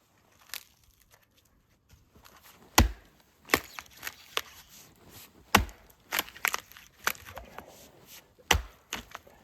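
Gränsfors Bruks Small Forest axe chopping wood: three heavy blows about three seconds apart, with lighter knocks and cracks of wood between them.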